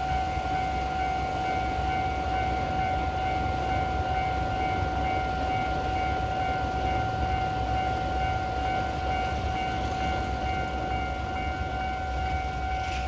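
Level-crossing alarm ringing steadily, its high electronic tones held over the low rumble of a passing container freight train hauled by an EH500 electric locomotive.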